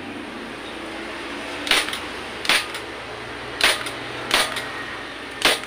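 Hand staple gun firing five staples one at a time, about a second apart, through a motorcycle seat cover into its plastic seat base; each shot is a sharp snap.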